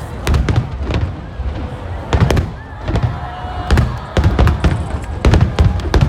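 Aerial fireworks shells bursting in rapid succession: a dozen or more sharp bangs, each with a deep boom.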